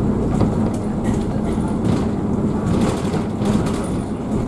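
Cabin noise of a double-decker bus on the move, heard from the upper deck: the engine running steadily under road rumble, with a few light rattles and clicks.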